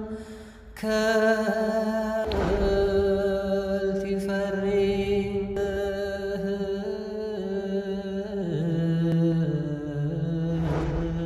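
Outro music: a slow, chant-like singing voice holding long notes, stepping lower in pitch in the second half. It breaks off briefly and comes back in about a second in.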